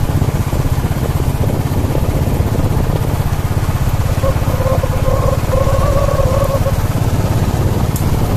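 A vehicle engine running steadily with rumbling road and wind noise as it drives along a dirt track.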